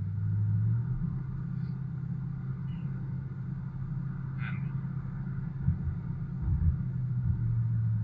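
Steady low drone of a truck's engine and tyres, heard from inside the cab while driving on a snow-packed road, with a couple of low thumps a little past the middle.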